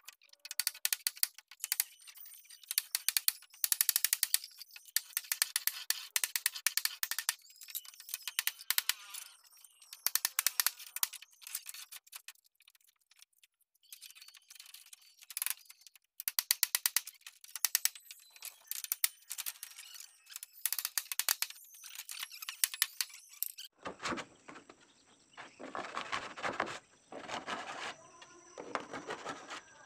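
Hand tools working wood, with clusters of rapid, sharp clicking and scraping strokes. Near the end, after a cut, a handsaw cuts through a wooden board in even back-and-forth strokes.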